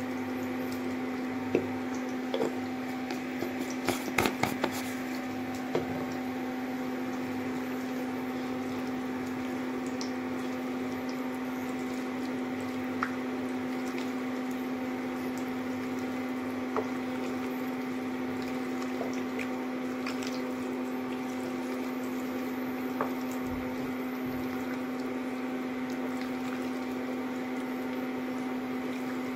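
Hand squishing and kneading marinated chicken pieces in a bowl to coat them with cornflour. A cluster of light knocks comes in the first few seconds, and a few single ticks come later. A steady low hum runs underneath.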